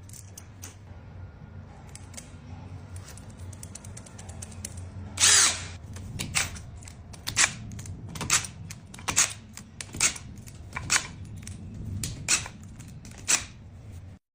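Power drill used in short trigger bursts, roughly one a second, after a longer first run about five seconds in, over a low steady hum.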